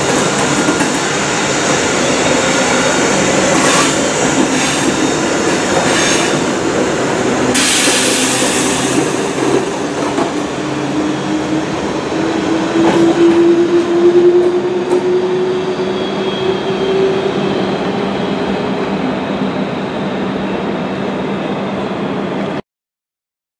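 SNCF Z 9500 electric multiple unit pulling away from the platform: wheels clicking over rail joints and points, with a whine that rises slowly in pitch as the train accelerates, growing fainter as it draws away. The sound cuts off suddenly near the end.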